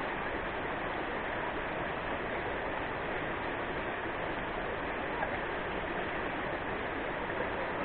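Rushing river water, a steady even rush with no breaks.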